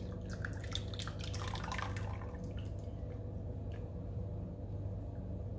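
Warm liquid scrub mixture being stirred by hand in a bowl: small wet clicks, drips and sloshes, thickest in the first couple of seconds and then sparse, over a steady low hum.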